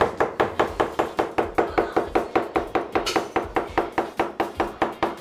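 Steel cleaver rapidly chopping a block of congealed lamb blood into strips on a thick wooden chopping board: fast, even knocks of the blade on the board, about five a second.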